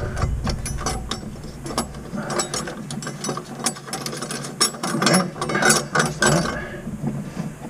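Rapid ratcheting clicks in several runs as a kitchen faucet's mounting hardware is tightened on its threaded shank. The clicking stops about six and a half seconds in.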